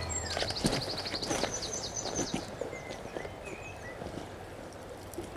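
Songbirds singing by a river: a fast trill of high, evenly repeated notes in the first two seconds, then scattered chirps, over the steady rush of the flowing river. A few footsteps and brushing through dry vegetation sound near the start.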